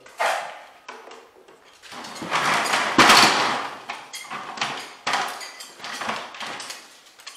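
A run of irregular scuffs and scrapes from drywall taping: paper joint tape being handled and pressed onto a mudded seam. The longest, loudest scuffing comes about two to three seconds in, followed by shorter strokes about every half second.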